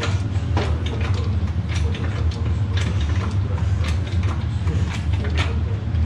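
Irregular metal knocks and clinks as a heavy gearbox hanging from a shop crane's chain is worked free of the backhoe loader's frame, over a steady low hum.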